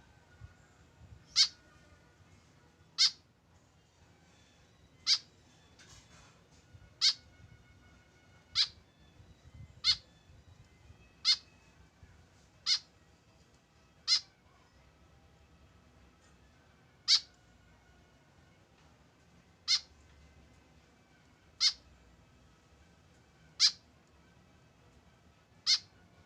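White-breasted woodswallow (kekep babi) giving a short, harsh call again and again, about fourteen times, one every one and a half to two seconds at first and spacing out to two to three seconds in the second half.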